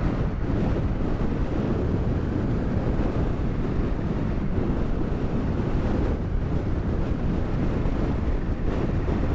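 Strong wind blowing across the microphone: a steady, low rushing noise that churns without a break.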